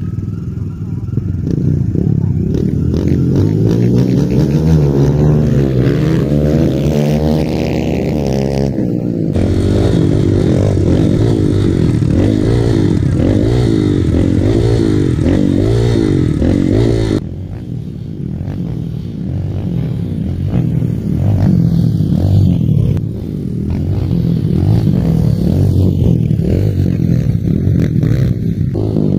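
Kawasaki KLX dirt bikes' single-cylinder four-stroke engines running and revving, the pitch rising and falling as the throttle opens and closes. The sound changes abruptly twice, at about 9 s and about 17 s.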